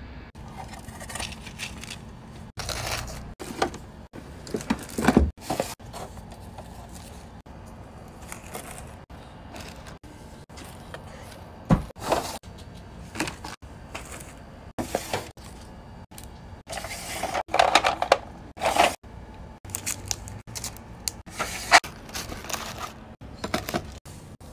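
Hands rustling and crinkling packaging: tissue paper, plastic sleeves and shredded paper filler. Irregular rustles come with scattered taps and clicks, louder in bursts about five seconds in, about twelve seconds in, and over a stretch in the later part.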